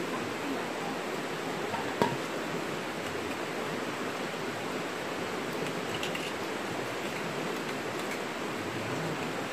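Steady rushing of a flowing river, with a single sharp click about two seconds in.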